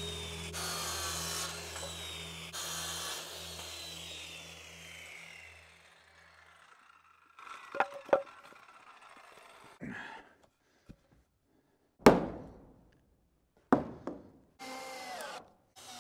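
Power miter saw running through rough-cut lumber, its whine falling slowly as it winds down. Then boards knocking as they are handled, a loud sharp wooden clatter about twelve seconds in, and a cordless drill running in short bursts near the end.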